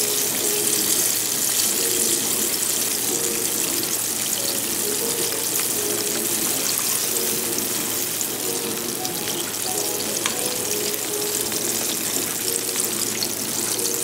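Coated salmon pieces deep-frying in hot oil, a steady sizzle.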